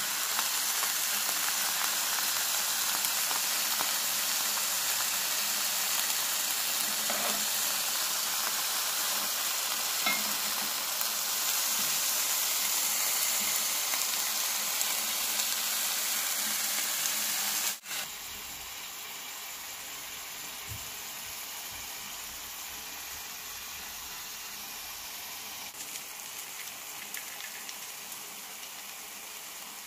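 Beef sirloin steak and vegetables sizzling in a frying pan as they sear. The sizzle is steady and drops abruptly to a quieter level a little past halfway.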